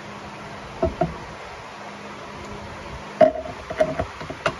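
Metal engine parts knocking and clinking as removed pistons are handled and set down. A couple of knocks come about a second in, then a cluster of ringing clinks from about three seconds in, the first of these the loudest.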